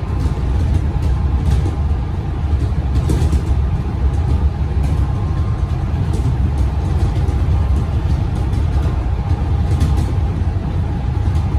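Melbourne suburban electric train running: a steady low rumble with a faint steady tone above it and scattered light clicks.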